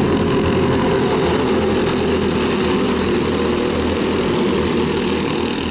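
A pack of dirt-track racing karts with single-cylinder four-stroke clone engines buzzing together at race speed in a loud, steady drone.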